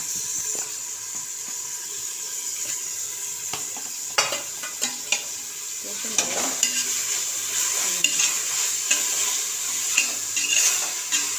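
Onion-tomato masala sizzling steadily in hot oil in a metal pot, with a ladle stirring and scraping against the pot. From about four seconds in come repeated clicks and knocks of the ladle on the metal.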